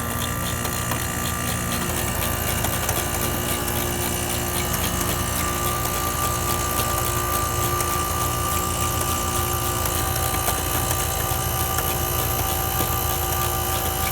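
Outdoor AC condensing unit running during a pump-down: the compressor and condenser fan give a steady hum and fan rush with a thin steady whine, as the compressor pushes the refrigerant into the condenser with the service valves closed off.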